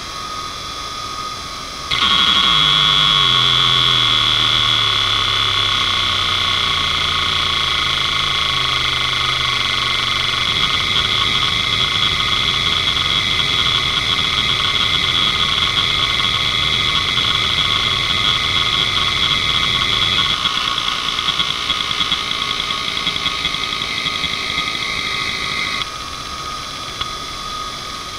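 Toshiba MK2326FC 2.5-inch three-platter hard drive running a seek benchmark: its head actuator makes rapid, repeated seeks that sound as a buzz falling steadily in pitch, then a coarser rattle, over a steady high whine. Near the end the seeking drops back to a quieter sound.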